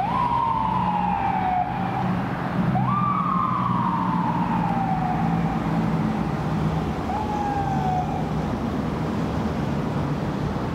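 Los Angeles Fire Department fire engine's siren sounding three short wails as it responds: each jumps up sharply and then slides slowly down. The first comes at the start, a longer one about three seconds in, and a brief one about seven seconds in. The engine runs underneath.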